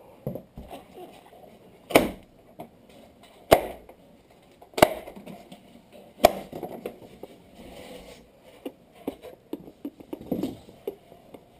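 Cardboard box and styrofoam packing being handled during an unboxing: four sharp knocks about a second and a half apart, with lighter rustling and clicking between them.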